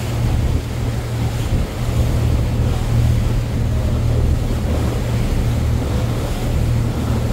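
Tour boat under way: its engine running with a steady low drone, over rushing sea water and wind on the microphone.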